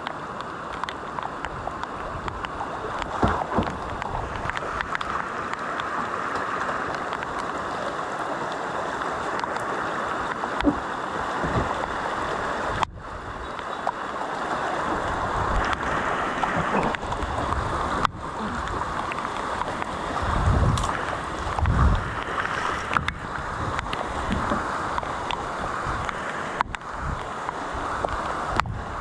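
Fast floodwater rushing around a plastic kayak as it is carried downstream, with scattered short splashes and knocks and a few low thumps about twenty seconds in.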